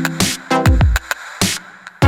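Electronic background music with a drum-machine beat: deep kicks that drop in pitch, sharp snare or clap hits and sustained synth notes.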